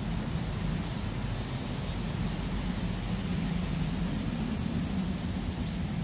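River water rushing steadily past in the rain, an even noise with a low rumble.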